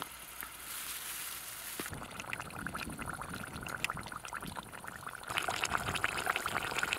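Meat frying in oil in a pan, a dense sizzling crackle that starts about two seconds in and grows louder about five seconds in.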